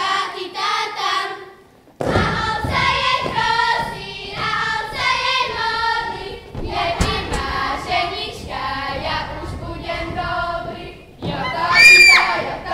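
Girls' choir singing a Slovak folk song in unison, resuming after a short pause about two seconds in, with feet thudding on the stage underneath. Near the end a loud, high whoop rises over the singing.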